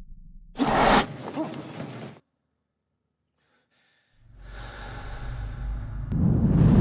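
A sudden loud breath like a sharp gasp or sigh about half a second in, cut off into about two seconds of silence. Then a rumbling whoosh swells steadily louder toward the end, as a trailer sound-effect build-up.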